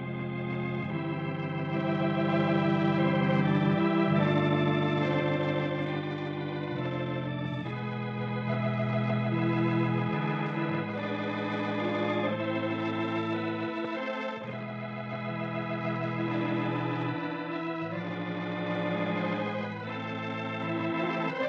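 Organ playing slow, sustained chords that change every second or two: the closing music of a radio broadcast.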